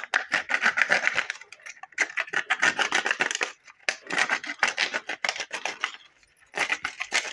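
A hand-held hacksaw blade sawing through the thin wall of a clear plastic bottle: a fast, scratchy rasp of back-and-forth strokes in four runs with short pauses between.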